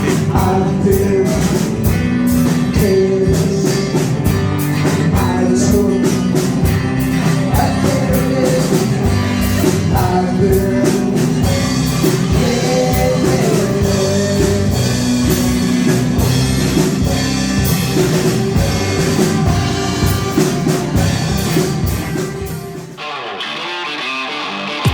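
Rock band playing live with a singer, drum kit and guitar, with a steady beat. About two seconds before the end it breaks off into a softer guitar passage.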